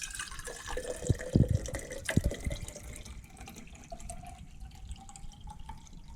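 Water running into a container, with a few knocks in the first two seconds, then a tone that slowly rises in pitch as the container fills.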